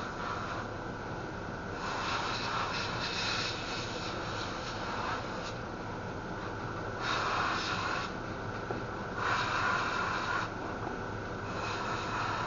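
Airbrush spraying paint: a hiss of air that starts and stops in repeated bursts of one to a few seconds as the trigger is pressed and released.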